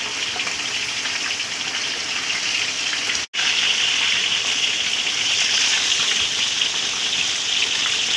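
Steady hiss and crackle of patin (pangasius catfish) frying in hot oil. The sound cuts out for an instant about three seconds in.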